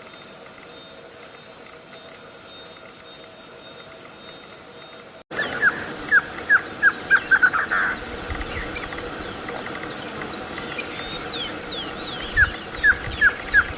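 Songbirds singing. First comes a rapid series of high, falling whistled notes. After an abrupt cut, a lower song of falling notes speeds up into a short trill, and the phrase is repeated near the end.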